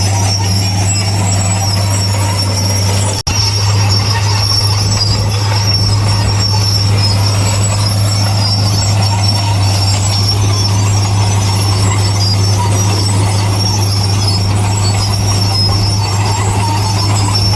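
Heavy earthmoving machinery running steadily, with a constant low diesel drone and a high metallic squeal over it. The sound cuts out for an instant about three seconds in.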